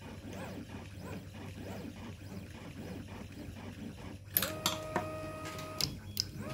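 Small hand tools and parts being handled on a tabletop: faint handling at first, then a cluster of sharp clicks and clinks about four seconds in, with a short steady ringing tone under them for about a second and a half. A low steady hum runs underneath.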